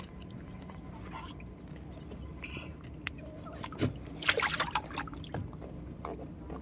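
Water sloshing and dripping with scattered wet clicks, and a louder splashy crackle about four seconds in.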